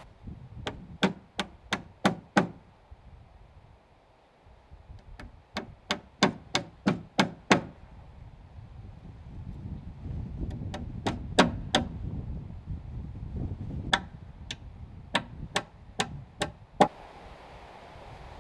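Blows struck on a heavy timber log, knocking it over into position: four bursts of sharp knocks at about three a second, with a low rumble in the middle between the third and fourth bursts.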